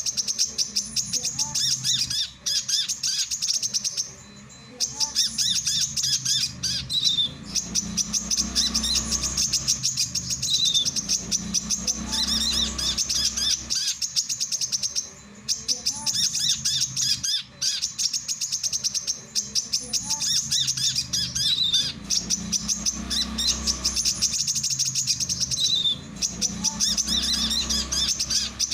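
Male brown-throated sunbird (kolibri kelapa) singing: long runs of very rapid, high chirping notes with occasional downward-slurred notes. Three short breaks, about four, fifteen and twenty-six seconds in.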